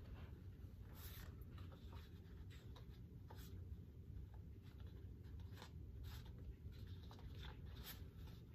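Faint rustling and flicking of paper note cards being shuffled in the hands, in short scattered bursts over a low steady room hum.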